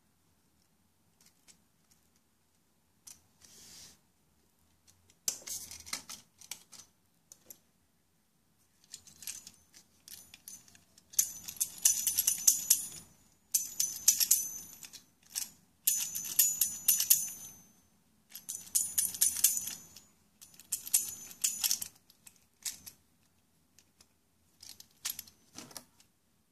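A Crong cymbal-playing toy's pair of small metal cymbals clashing rapidly, jingling in bursts of a second or two with short pauses between them.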